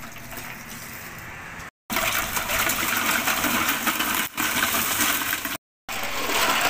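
Pink syrup mix poured in a stream into a plastic bucket, splashing steadily. After a brief break about two seconds in, louder sloshing and splashing as ice cubes are tipped into the liquid and stirred with a wooden stick. A second short break to silence comes near the end.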